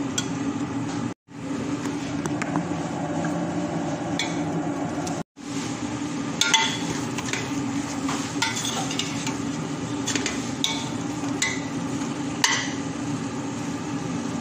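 A metal spoon stirring and scraping in a stainless-steel cooking pot, clinking against its sides now and then, over a steady hum. The sound cuts out briefly twice.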